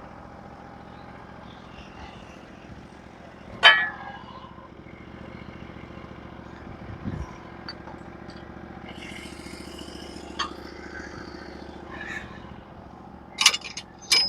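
Small engine running steadily at idle, with one sharp knock a little under four seconds in, a dull thud around seven seconds and a quick run of knocks near the end.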